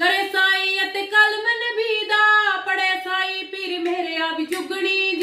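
A young woman singing a Punjabi folk song unaccompanied, in long held notes with gliding ornaments.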